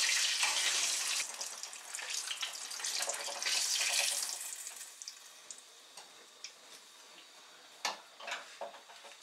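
Ricotta hand pies frying in hot oil in a small saucepan: a loud sizzling hiss that dies down after about four seconds, followed by a few light clicks and taps of a metal spoon against the pot and bowl.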